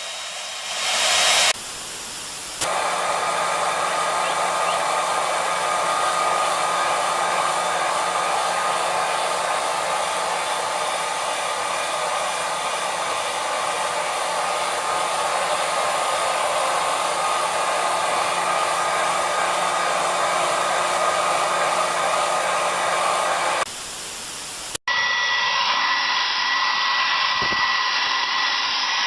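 Electric hair dryers blowing with a steady whooshing hum. The sound changes abruptly a few times, about two seconds in and again near the end, as one dryer gives way to another.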